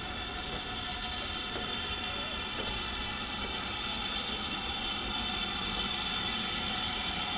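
BR Standard Class 4MT 2-6-4 tank steam locomotive drifting slowly into the station with no exhaust beats: a steady high-pitched hum over a low rumble, growing a little louder as it nears.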